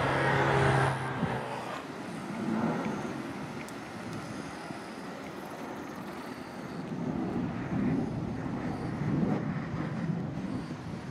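Outdoor road-traffic noise: a vehicle passes close by in the first second and a half with a steady low hum, then a low, uneven traffic rumble.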